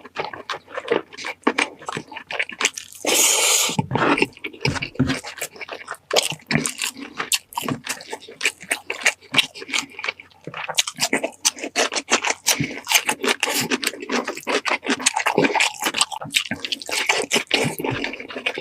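A baby eating close to the microphone: a steady run of wet smacking and chewing clicks, with a brief louder rush of noise about three seconds in.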